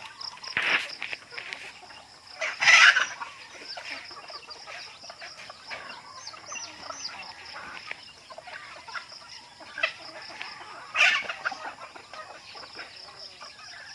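Native chickens clucking, with a few loud short squawks: one about a second in, the loudest near three seconds in, and another about eleven seconds in.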